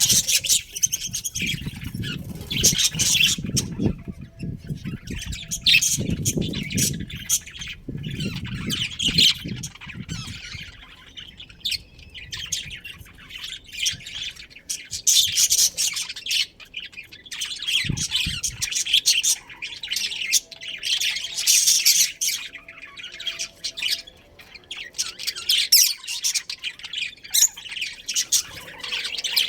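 A colony of budgerigars chirping and chattering continuously, many birds calling over one another in dense, rapid bursts. A low rumble sits underneath for about the first ten seconds.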